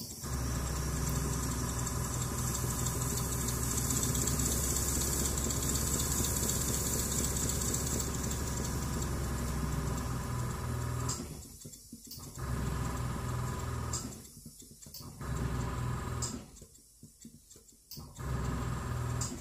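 Holzapfel CH110 twin-cylinder model marine steam engine running on compressed air, with a fast, steady beat. After about eleven seconds it stops and starts again three times in short runs of a second or two.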